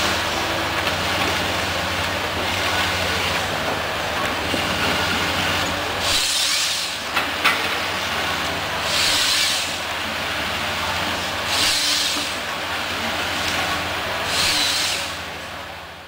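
Komatsu tracked forestry harvester at work, its diesel engine running with a steady low hum. In the second half, hissing surges come about every three seconds, typical of the hydraulics driving the boom and felling head. The sound fades out at the end.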